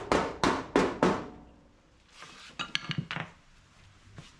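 Rapid hammer blows on the sheet metal of a 1979 Ford F250's dented front passenger-side panel, knocking the dent out: about three sharp strikes a second that stop about a second in. Near the three-second mark come a couple of light metallic clinks with a brief ring.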